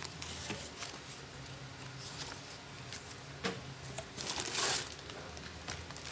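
Paper and plastic packaging rustling and crinkling as it is handled by hand, with a few soft knocks against cardboard. A single knock comes about three and a half seconds in, and the longest crinkle of the plastic bag follows just after four seconds.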